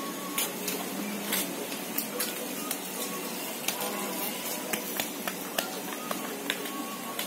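Outdoor ambience while walking on a wooden plank boardwalk: a steady hiss with faint distant voices, and scattered sharp clicks of footsteps on the wooden boards.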